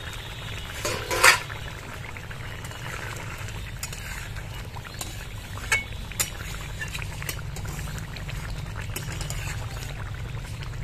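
A metal lid comes off a cooking pot with a sharp clank a little over a second in. Then thick curry bubbles at the boil while a metal ladle stirs it, with scattered light clicks and scrapes against the pot.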